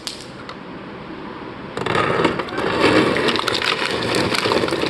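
LG side-by-side fridge's door ice dispenser crushing and pouring out crushed ice in a dense clatter, starting about two seconds in.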